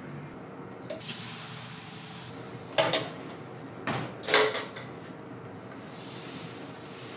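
Metal clanks of a ladle and stainless steel batter pot, about four sharp knocks in two pairs around the middle, as crepe batter is ladled onto the griddle, over a steady hiss.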